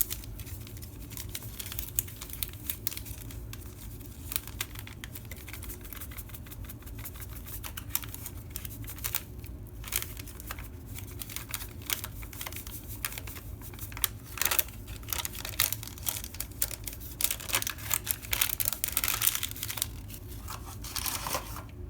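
Instant vanilla pudding mix being opened and emptied into a bowl: irregular crinkling, tearing and light clicking of its packaging, busier in the second half.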